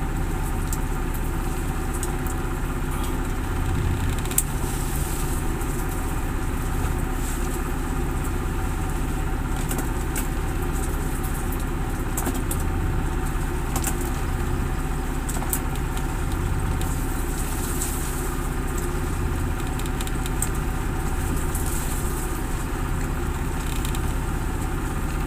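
Fishing boat's engine running steadily, with scattered faint clicks over it.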